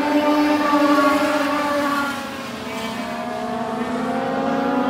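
A pack of Legends race cars, each powered by a Yamaha 1250 cc motorcycle engine, racing past at full throttle, several engine notes overlapping. The pitches slide down and the sound eases a couple of seconds in, then the engines climb back up as the cars come off the turn.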